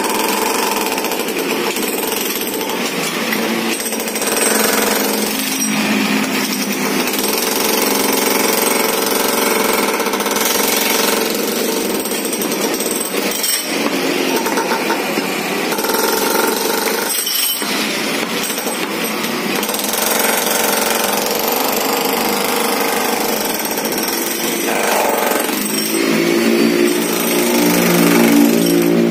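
Electric jackhammer hammering into a concrete pavement slab, breaking it up, running almost without a break.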